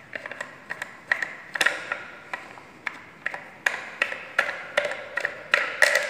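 Sharp, irregular plastic clicks and rattles, a few a second, as a wing nut is twisted off a plastic wall-fan bracket by hand.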